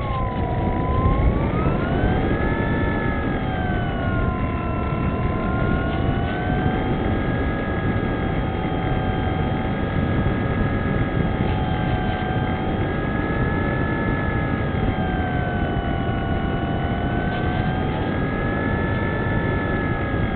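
Wing Dragon RC model plane's electric motor and propeller whining, heard through the plane's onboard camera over a rush of wind and airframe noise. The pitch climbs about two seconds in, then rises and falls slowly with the throttle.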